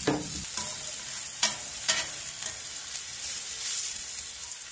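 Red onion slices and jalapeño rings sizzling in oil on a hot seasoned griddle over charcoal, a steady hiss. About five sharp clicks of metal tongs on the griddle come in the first two and a half seconds.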